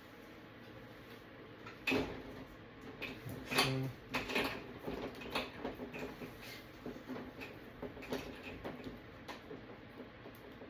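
Hard parts of a flat-screen TV being handled during disassembly. There is a sharp knock about two seconds in and a short creak, followed by a run of light clicks and clatters.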